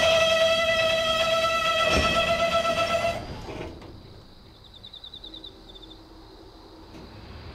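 Freight train's wagon brakes squealing in one steady, loud, high tone as the container train slows, cutting off abruptly about three seconds in as the train comes to a stop; after that only faint background sound remains.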